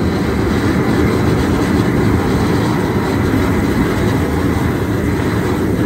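Propane jet burner of a High Performance Cookers seafood-boiling rig running wide open under the stockpot: a loud, steady rushing noise, the heat turned up to bring the water to a boil.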